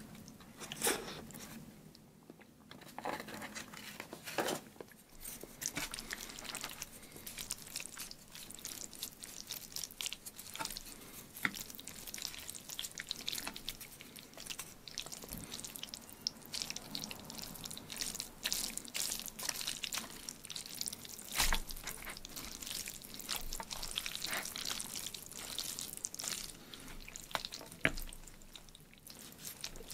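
Chopsticks stirring and tossing a large heap of noodles in thick black bean sauce, with a wet, sticky crackle and sharp clicks scattered throughout.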